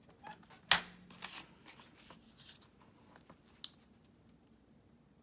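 Paper being handled: a sharp knock about a second in, then the light rustle of a cut sheet of paper being lifted and laid in place, and a small click a little later.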